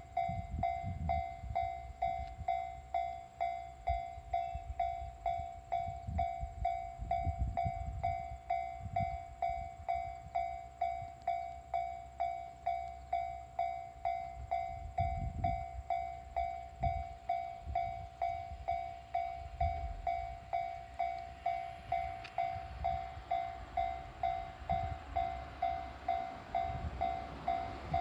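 Japanese level-crossing warning bell ringing steadily at about two strokes a second, over low gusty rumbling. Near the end a rising rush of noise comes in as the train approaches the crossing.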